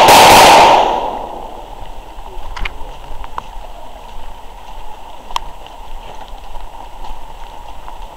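A loud, clipped rush of noise on the microphone, fading out about a second in. Then faint, scattered ticks of footsteps on a forest path.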